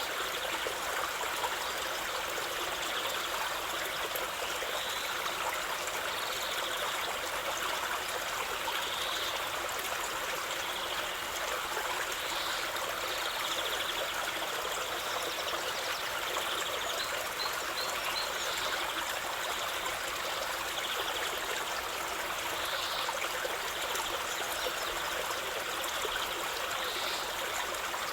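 A small stream running and trickling steadily.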